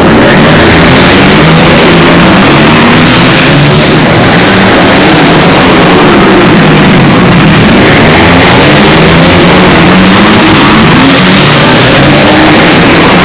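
A pack of 250 cc class racing motorcycles running together, their engines revving up and down through the corners. The engines overlap in several rising and falling pitches, and the sound is loud throughout.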